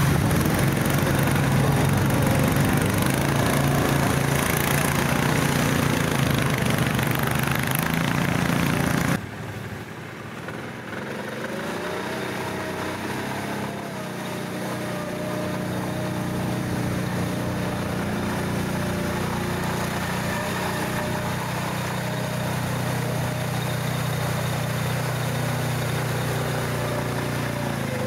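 All-terrain vehicle engine running steadily. About nine seconds in the sound drops suddenly to a quieter engine whose pitch rises and falls gently as the revs change.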